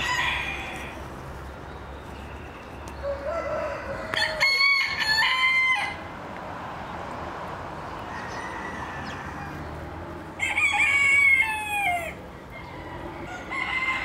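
Rooster crowing twice: a two-second crow about four seconds in and another, ending on a falling note, about ten and a half seconds in.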